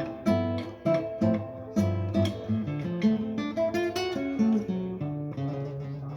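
Yamaha CG-TA nylon-string classical guitar being played: a run of plucked notes and strummed chords, ending on a chord left to ring out.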